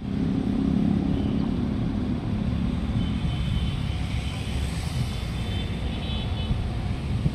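Steady rumble of road traffic, with an engine hum that is strongest in the first few seconds.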